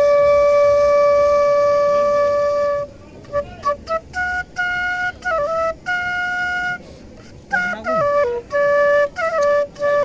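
Bansuri (bamboo flute) played solo: a long held note for the first three seconds or so, then a melody of short notes with brief gaps and quick ornamental turns between pitches.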